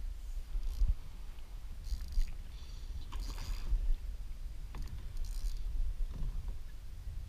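Wind rumbling on the microphone, with scattered knocks and short splashy rustles as a push pole is worked against the skiff and into the water.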